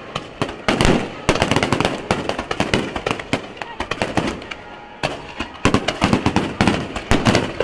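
Fireworks shells bursting in quick succession with crackling, thinning out around the middle and picking up again about five seconds in.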